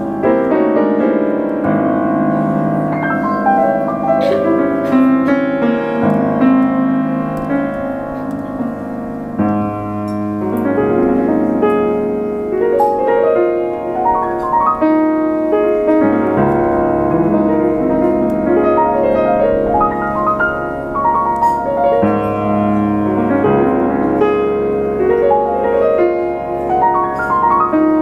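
Grand piano played solo: a flowing classical piece with many notes sounding together over held bass notes that change every few seconds.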